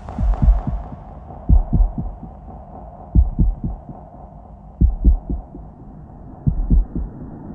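Experimental electronic soundscape: low, heartbeat-like thuds in groups of two or three, about every second and a half, over a steady droning hum. A high hiss fades away in the first second.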